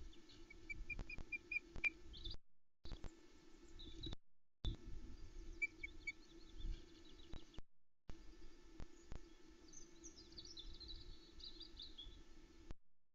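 Osprey calling in short whistled chirps, a run of about six, then three more a few seconds later. Near the end a small songbird sings a quick, higher warble. A steady low hum and wind rumble run underneath, and the sound cuts out briefly several times.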